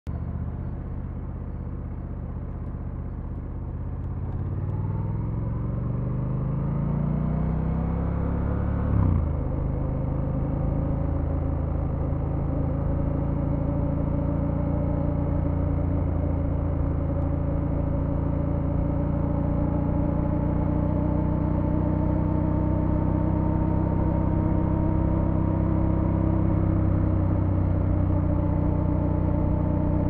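Triumph Scrambler 1200 X's 1200 cc 270-degree parallel-twin engine, heard from the rider's seat. It runs low for a few seconds, then revs climb as the bike accelerates. About nine seconds in the pitch drops sharply on an upshift, after which it runs steadily at cruising speed with the pitch slowly creeping up.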